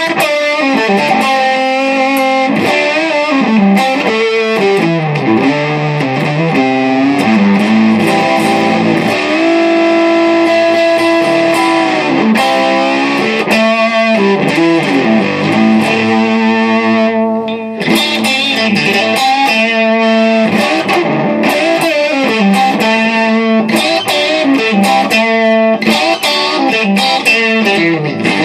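Electric guitar with its pickups tapped to single coils, played through an overdrive made of three cascaded BS170 MOSFET gain stages: distorted chords and riffs with long held notes, pausing briefly about two-thirds of the way in.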